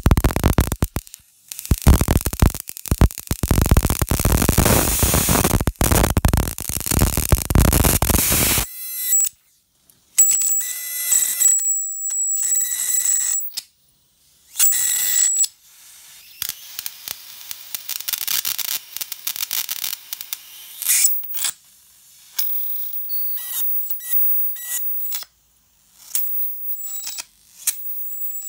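High-voltage arc at a fluorescent tube's end pins, buzzing and crackling loudly with brief breaks for about nine seconds, then cutting off. After that come quieter, intermittent crackles with a high-pitched whine that switches on and off in short spells.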